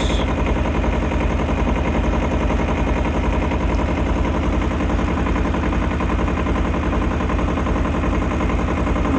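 Tractor engine running steadily, with a dense, even chugging rhythm.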